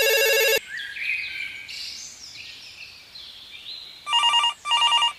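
A telephone ringing with a trilling electronic ring. One ring ends about half a second in, and two short rings come close together near the end. Faint bird chirps fill the quiet between them.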